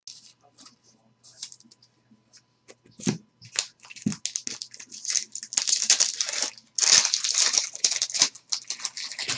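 A foil trading-card pack handled and torn open by hand, its wrapper crinkling. Scattered light clicks and taps come first, then dense crinkling sets in from about five seconds in and is loudest around seven seconds.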